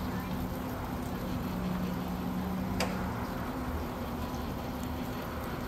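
Electric boat lift motor humming steadily, then a single click about three seconds in as it is switched off, the hum dying away just after; a lower steady hum and outdoor background noise continue.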